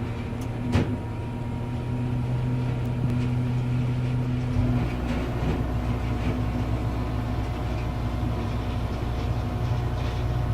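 A heavy mobile wood crusher's diesel engine runs with a steady hum. There is a sharp knock near the start, and a heavier low rumble joins about halfway through.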